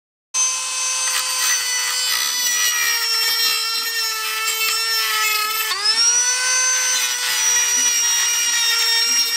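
Cordless rotary tool with a small abrasive wheel whining at high speed as it grinds down high points on the jointer's metal casting to give the new cutter head more clearance. Its pitch sags under load, dips sharply about five and a half seconds in and climbs back up.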